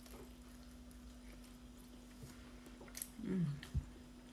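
Someone quietly eating a fresh oyster, with faint mouth clicks and a short falling "mmm" of enjoyment about three seconds in. A steady low hum runs underneath.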